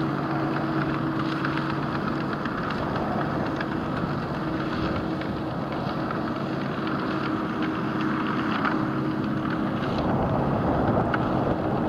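New Holland tractor engine running steadily under load, driving a rear-discharge muck spreader's beaters as they fling manure, with a constant rattle over the engine drone. It grows a little louder near the end.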